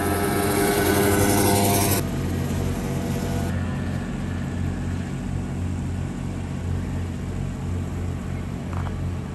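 Small go-kart engine of a kid kart running on track. It is louder for the first couple of seconds, then an abrupt cut leaves a quieter, steadier engine drone for the rest.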